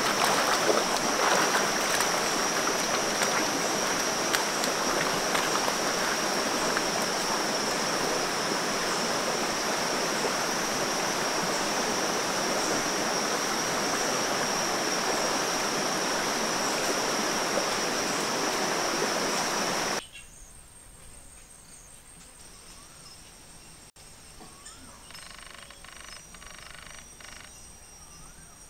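Shallow rocky stream running, with splashing near the start and a steady high-pitched drone above it. About 20 seconds in it cuts off abruptly to much quieter forest ambience with a faint high tone and faint short animal calls.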